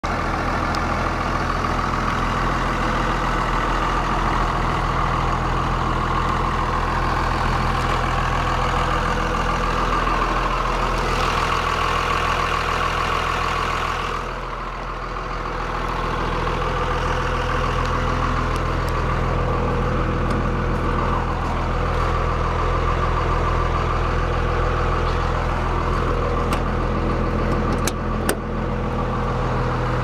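1999 Blue Bird school bus engine idling steadily, with a brief dip in level about halfway through and a couple of sharp clicks near the end.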